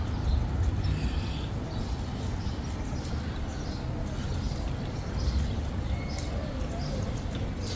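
Outdoor ambience: a steady low rumble with birds chirping here and there.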